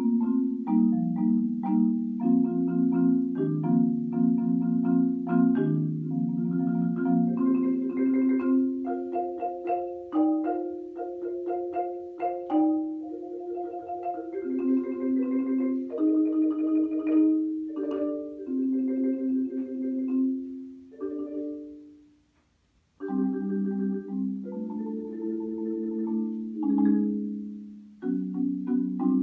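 Solo concert marimba played with mallets: a slow line of pitched notes and chords. About 22 seconds in the sound dies away to a moment of silence, then a new phrase begins.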